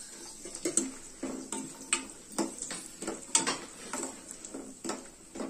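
A steel spoon clinks and scrapes against a stainless-steel kadai as dry fruits are stirred in hot ghee, making about ten irregular sharp knocks.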